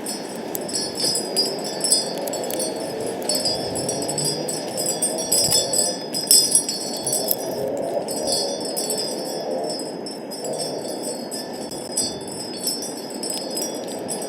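Wind chimes ringing, struck again and again by gusts, with a steady rush of wind underneath.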